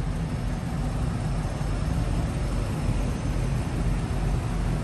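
Hummer H2's V8 engine idling steadily, a low even hum.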